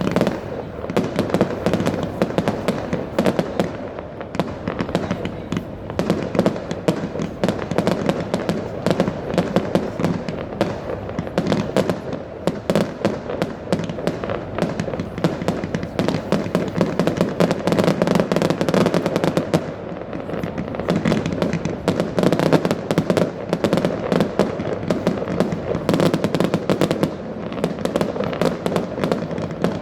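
Many fireworks and firecrackers going off at once: a dense, unbroken crackle of overlapping bangs and pops with no pause.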